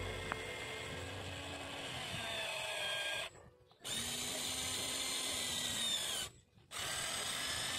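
Electric motors of a Huina remote-control excavator whining as the boom and bucket work, the pitch rising and falling as the arm moves. The whine breaks off twice for about half a second.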